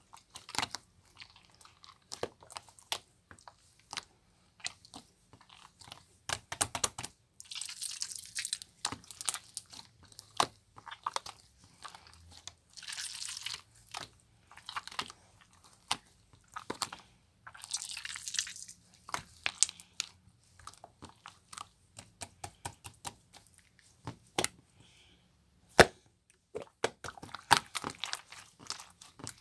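Hands squeezing, poking and stretching a homemade slime made from canned stationery-store slime and liquid glue, giving many small sticky clicks and pops, with several runs of crackling squelches a second or two long.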